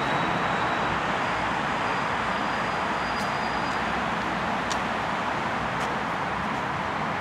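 Steady road traffic noise from a city street: an even wash of passing cars and buses with no single vehicle standing out.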